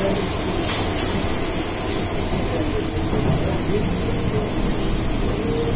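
Steady rumble and hiss of a rail vehicle running, without breaks.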